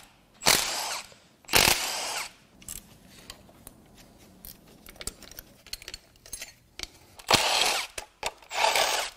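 Cordless power tool spinning in four short bursts, each under a second: two in the first couple of seconds and two near the end, with small clicks and handling noise between. It is running fasteners on the turbocharger and exhaust manifold of a Mini Cooper S N14 turbo engine.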